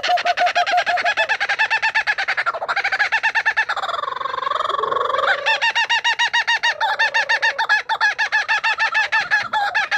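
A bird calling in a long, loud run of rapidly repeated notes, about eight a second; the run briefly gives way to a smoother sliding call about four seconds in, then picks up again.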